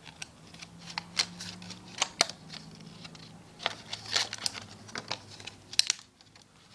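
Hands picking at the small paper-and-plastic wrapping of a bracelet, giving irregular crinkles and sharp little clicks, with two louder snaps about two seconds in and near the end.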